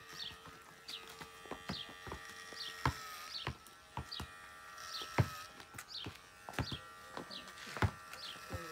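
Electric hair clippers buzzing steadily, their pitch dipping briefly as they bog down cutting through hair, with scattered sharp clicks. A garden bird chirps repeatedly in short falling notes.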